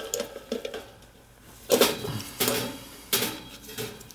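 Sheet-metal parts of a gas furnace clattering and scraping as a panel and the blower assembly are worked loose and slid out by hand. A few light clicks come first, then two louder bouts of metal clatter a little over a second apart.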